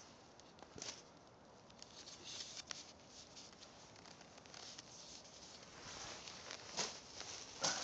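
Footsteps crunching on gravel backfill, faint and irregular, with a few louder crunches near the end.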